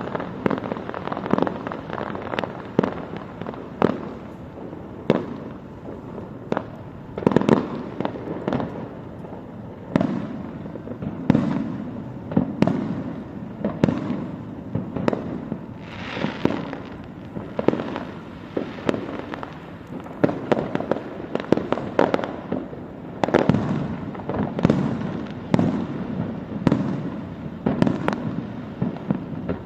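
Aerial fireworks display: a steady succession of bangs, often several a second, each with a rumbling echo, and a burst of crackling about halfway through.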